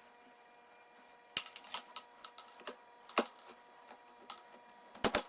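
Irregular light clicks and taps of bicycle headset and stem parts being pushed down and seated on the fork's steer tube, with a cluster of clicks early, a single knock around the middle and a quick double click near the end.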